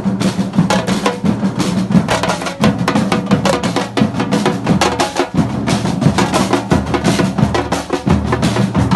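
A batucada percussion band playing a fast, dense rhythm: deep bass drums under quick, sharp strokes.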